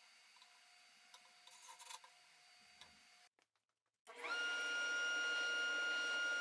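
Shop-vac-style dust collector motor switching on about four seconds in, spinning up within a fraction of a second to a loud, steady high-pitched whine. Before that there are only a faint steady hum and a few light clicks.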